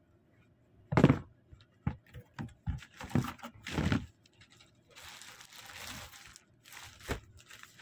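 Plastic packaging being handled: clear plastic bags and poly mailers rustling and crinkling in short bursts, with a longer stretch of crinkling after about five seconds. A sharp thump about a second in is the loudest sound.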